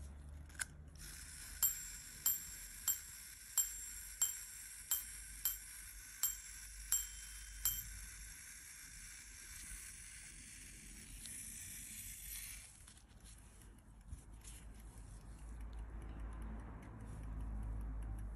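An antique verge fusee quarter-repeater pocket watch being made to repeat. The pendant clicks, then the hammer strikes the watch's small bell ten times, about one and a half strikes a second, sounding the hour of ten. The bell keeps ringing and is cut off a few seconds after the last strike.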